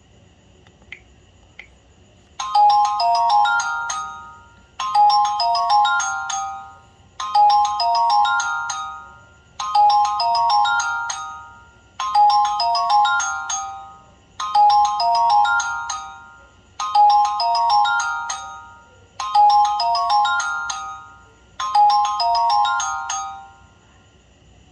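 LG Classic Flip flip phone playing a ringtone: a short phrase of bright electronic notes, repeated nine times about every two and a half seconds, each fading out before the next. Two faint clicks come before the first ring.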